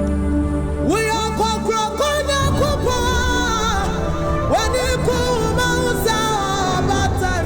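Gospel worship music: a voice sings a melody with sliding, ornamented notes over steady band accompaniment, the voice coming in about a second in.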